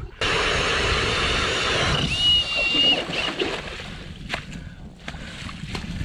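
Hand ice auger drilling through lake ice: a loud grinding, scraping noise with slushy water sounds, a short squeak about two seconds in, easing off after about three seconds, then a few sharp clicks.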